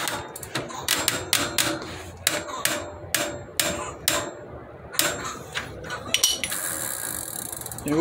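Ratchet wrench turning a cassette lockring tool, clicking in short irregular runs as the lock ring on a Shimano bicycle cassette is tightened.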